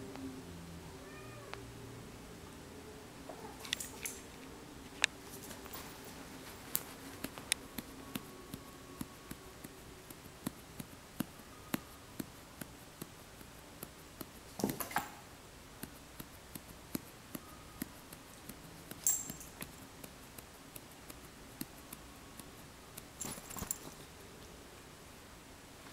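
A kitten meowing faintly now and then. Scattered sharp clicks and a few brief rustling bursts come through between the calls.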